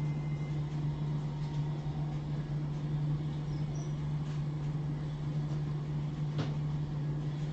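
Steady low hum of room equipment, with a single sharp click about six and a half seconds in.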